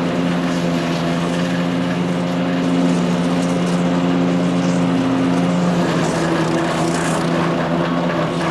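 Power King wood chipper shredder running on its 14 HP Kohler CH440 single-cylinder engine, a loud steady drone whose tone shifts about six seconds in.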